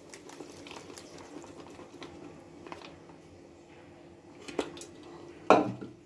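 Aluminium pressure cooker tipped over a steel pot to pour out curry: faint scrapes and light metal taps, then a single loud metal clank near the end as the cooker is set down on the counter.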